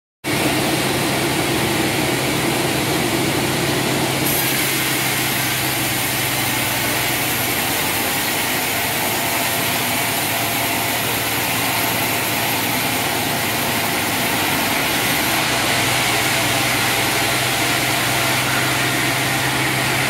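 Sawmill log band saw running and ripping lengthwise through a large log on the carriage: a loud, steady mix of motor hum and cutting noise, with a thin high whine that comes in about four seconds in and drops away a few seconds before the end.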